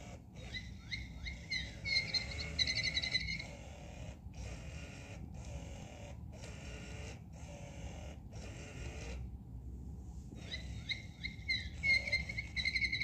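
Bird-like calls: a run of quick downward chirps leading into a fast trill, heard twice, with a string of short, abruptly cut repeated snippets between them over a low hum.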